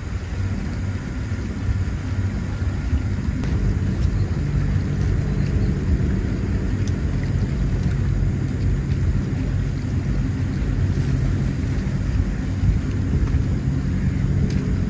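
Steady low rumble that grows louder about two seconds in, with a few faint clicks.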